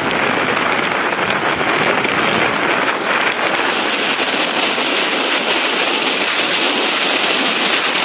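Typhoon wind roaring with heavy surf breaking over a seawall: a loud, steady rush of noise.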